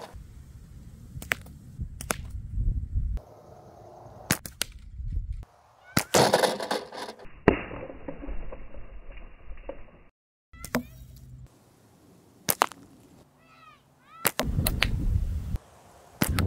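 Slingshot shots with flat rubber bands: a series of sharp snaps, several seconds apart, as the bands and pouch are released, over gusts of wind on the microphone.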